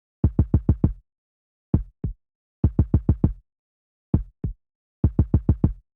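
Low, pitched percussive thuds in a looped rhythm: a quick run of six hits, then two, with dead silence between, the pattern repeating.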